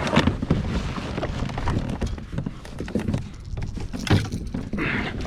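Irregular small knocks and slaps aboard a fishing kayak on the water, over a steady rumble of wind on the microphone. A sharper knock comes about four seconds in.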